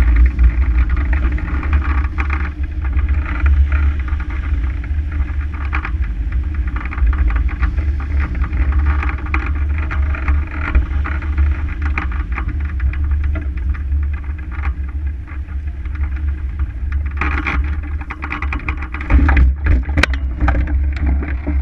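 Steady wind rush and low rumble of airflow buffeting a camera mounted on a hang glider's wing during a low glide. Near the end the glider touches down on grass, with a string of knocks and rattles from the landing.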